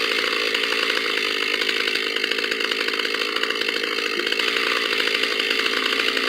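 Chainsaw running steadily at speed while cutting into wood.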